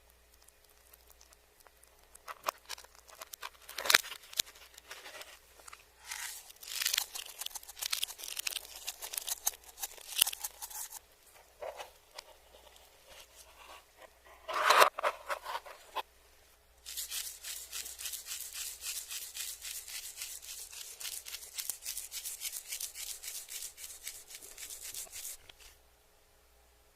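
Close-up eating sounds played backwards: irregular crunching and crinkling with a couple of loud crunches, then a long run of quick, even, scratchy strokes that stops shortly before the end.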